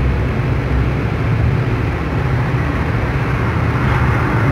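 Steady road and engine noise inside a moving car cruising on a highway: a continuous low hum with tyre rumble.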